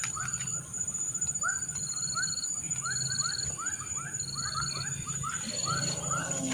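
Outdoor animal chorus: a long run of short rising chirps, about three a second, over short, regularly repeating buzzing pulses higher up and a steady high whine.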